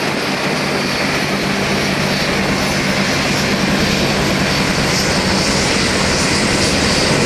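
Several Bell AH-1 Cobra and UH-1 Huey helicopters running on the ground with rotors turning: a steady turbine whine over the low drone of the rotors.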